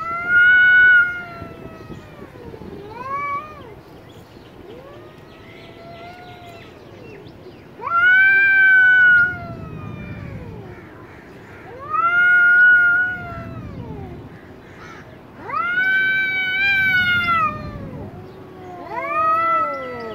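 Two domestic cats caterwauling in an aggressive standoff before a fight: long, drawn-out yowls that rise and fall in pitch, five loud ones a few seconds apart with quieter wails between.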